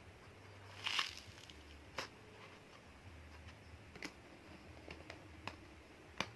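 A handmade squishy, made of sponge wrapped in double-sided tape, being handled and squeezed: a few soft, scattered crinkles and light taps, the clearest about a second in.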